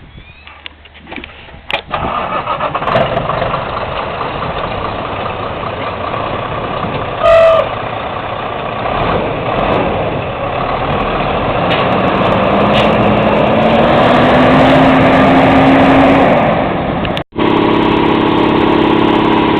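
Farm truck's engine starting about two seconds in and running. There is a short beep around the middle and a rising whine as it picks up speed. Near the end the sound cuts abruptly to a different steady engine hum.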